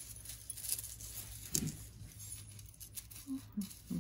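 Light clinking and rustling of thin metal chains being untangled by hand, in scattered small clicks over a low steady hum.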